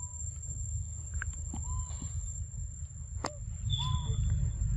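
Outdoor forest sound: a steady low rumble under a constant high-pitched whine, with three short chirping calls about two seconds apart and a sharp click about three seconds in.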